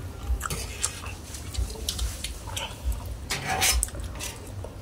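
Close-up eating sounds of people chewing bamboo-shoot curry with pork and rice: small wet smacks and clicks, with a longer slurp of the soup about three and a half seconds in.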